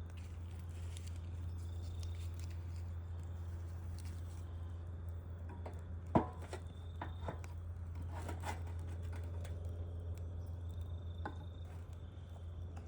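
Wood fire crackling, with scattered small pops and one sharp, louder pop about six seconds in, over a steady low rumble.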